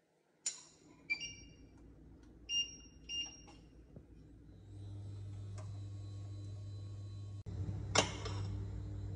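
Induction cooktop beeping from its touch controls several times, then starting to heat with a steady low electrical hum and a faint fan whine. A single sharp clack near the end.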